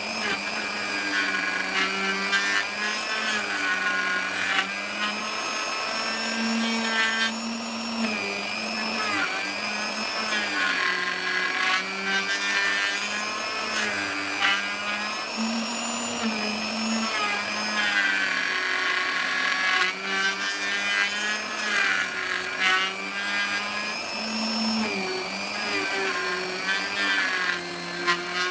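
Electric router running and cutting into teak. Its motor pitch dips and recovers over and over as the bit bites into the wood.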